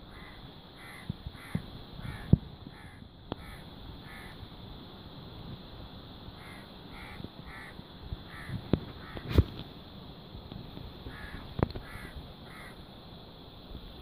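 Crows cawing in three runs of short, harsh calls, about two a second. Several sharp knocks, louder than the calls, break in among them.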